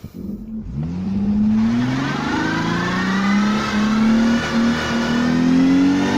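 Holden VY Commodore's 3.8-litre V6 revving up about a second in and then held at high revs, pitch creeping slowly upward, as the car is driven for a skid.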